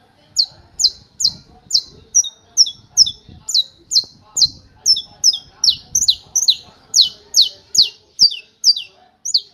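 Saffron finch singing its 'martelo' (hammer) song: a fast, even run of loud, sharp, high notes, each falling in pitch, a little over two a second, some of them doubled. The run breaks off near the end.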